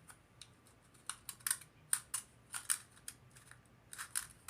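Sharp, irregular hard-plastic clicks from a selfie-stick phone holder being twisted and adjusted, about a dozen of them starting about a second in.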